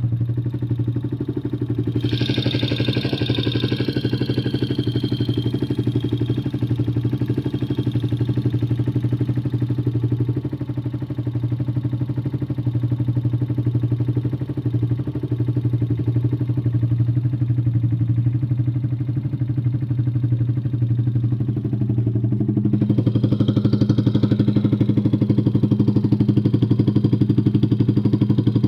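Engine running steadily with a rapid, even ticking or knocking, a noise that could be loose valve clearance or engine knock. It gets slightly louder about 23 seconds in.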